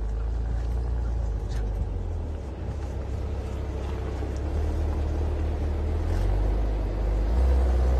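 Maserati SUV's engine and exhaust running at low revs, a deep steady rumble that grows louder over the last couple of seconds as the car pulls forward.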